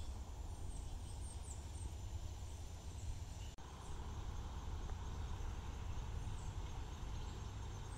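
Outdoor ambience by a shallow flowing river: a steady low rumble and hiss with a few faint, short high chirps. The sound drops out for an instant about three and a half seconds in.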